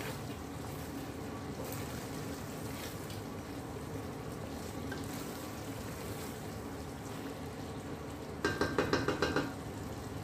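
Chicken handi masala simmering and sizzling in ghee in a stainless-steel pot while a spatula stirs it. Near the end there is a short, quick run of sharp, louder rattles lasting about a second.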